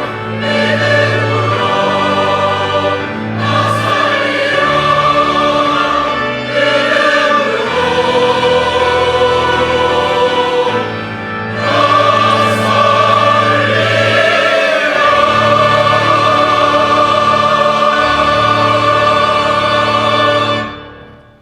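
Church choir singing, closing on a long held chord that fades away near the end.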